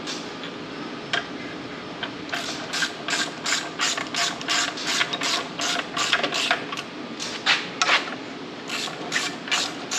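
Hand socket ratchet clicking in quick back-and-forth strokes, about three to four clicks a second, as clutch pressure-plate bolts are run down onto the flywheel. The clicking starts a couple of seconds in and pauses briefly twice near the end.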